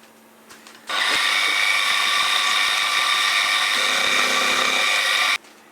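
Milling machine cutting a face on a small brass part: a steady, high-pitched running sound with several steady tones. It starts about a second in and stops abruptly near the end.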